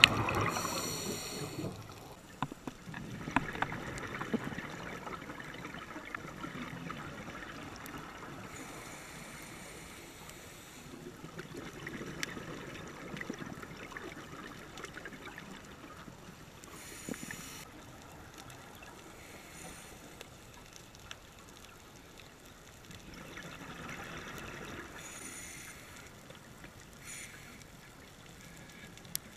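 Scuba diver breathing through a regulator underwater: gurgling swells of exhaled bubbles every several seconds, with a short hiss from the regulator on each inhale between them and a few faint sharp clicks.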